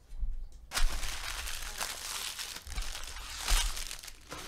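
Foil wrapper of a trading-card pack crinkling and tearing as it is opened. The sound starts suddenly about a second in and runs for about three seconds.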